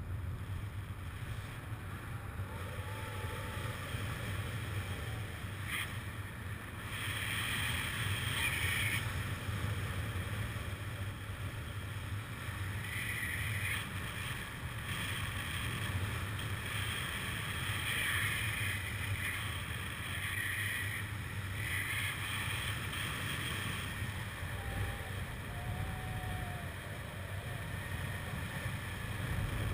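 Wind buffeting the microphone of a paraglider pilot's camera in flight: a steady low rumble that swells several times into a brighter hiss as the airflow strengthens.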